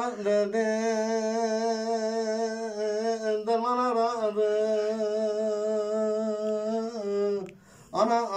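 A man singing an unaccompanied uzun hava, the free-rhythm Turkish folk song: one long held note with wavering ornaments. The note breaks off about seven seconds in, and he starts again just before the end.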